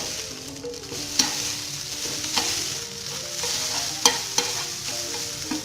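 Instant noodles sizzling in oil in a frying pan over high heat, being seared until crisp, with a few sharp knocks of a cooking utensil against the pan.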